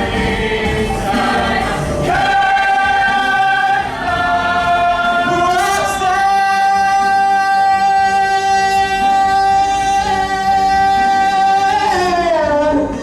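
Choir singing sustained chords. The chord shifts a few times, then one long chord is held before sliding down near the end.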